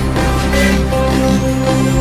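Electronic background music with a steady low bass and held chords, and a thin rising sweep in the second half.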